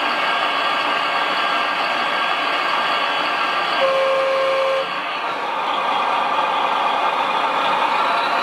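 Motors of radio-controlled construction machines running with a steady whine, with a single one-second beep about four seconds in.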